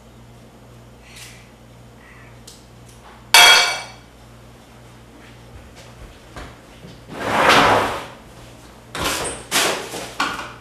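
Kitchen clatter: a sharp metallic clang that rings for under a second about three seconds in, a rushing noise lasting about a second a few seconds later, then a run of knocks and clatters near the end.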